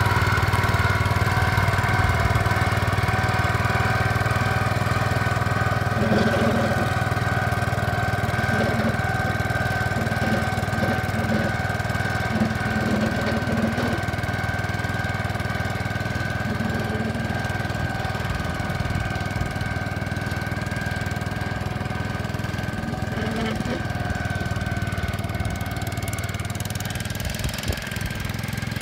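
Gravely walk-behind tractor's engine running steadily at a constant speed, with an even hum that does not change pitch.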